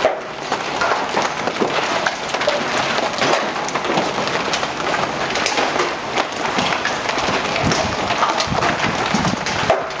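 Large hailstones, golf-ball size and bigger, pelting down in a dense steady clatter of many small impacts, with a few harder single strikes standing out.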